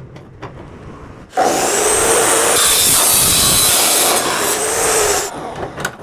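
DeWalt D28870 14-inch abrasive chop saw cutting through a 2x2 square steel tube: a loud, steady grinding screech with a high motor whine that starts suddenly about a second in, lasts about four seconds, and then drops away as the cut ends.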